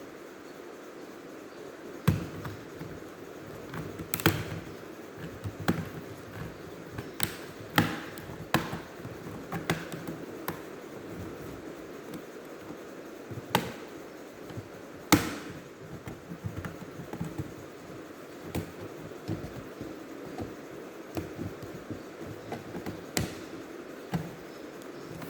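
Irregular clicks, taps and knocks of tools and laptop parts being handled while an HP x360 laptop is taken apart, over a steady background hiss. The sharpest knocks come about two seconds in and again about fifteen seconds in.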